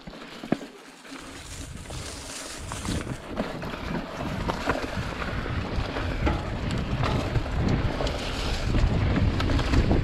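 Mountain bike rolling fast down a dirt and stone trail: tyres rumbling and crackling over the ground with small knocks and rattles, and wind rushing over the action camera's microphone. It starts about a second in and grows louder as speed builds.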